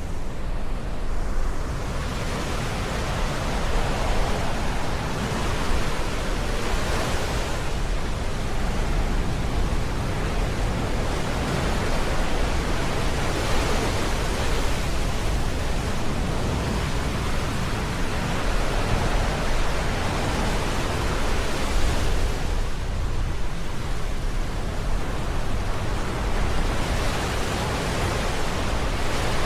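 Ocean waves breaking on the shore in the rain: a continuous wash of surf that swells every few seconds as waves come in, over a steady low rumble.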